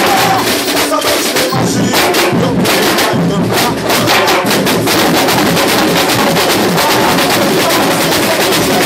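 Samba school bateria playing a samba rhythm at full volume: surdo bass drums, repiniques and other drums striking together in a dense, continuous groove.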